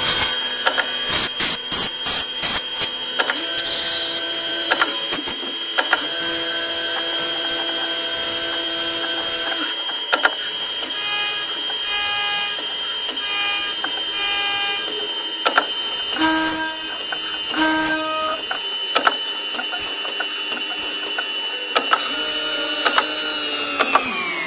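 CNC milling machine running: a steady high whine with clicks and short pitched bursts from the motors. Near the end the whine falls steeply in pitch as the machine spins down.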